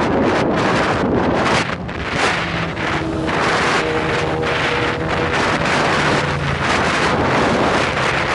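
Heavy wind rushing over the microphone of a motorcycle riding at speed. For a few seconds in the middle the wind eases and a steady motorcycle engine hum comes through underneath.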